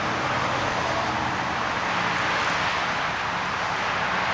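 1999 Volvo S70's turbocharged 2.4-litre inline-five idling, heard near the tailpipe as a steady low hum under an even hiss.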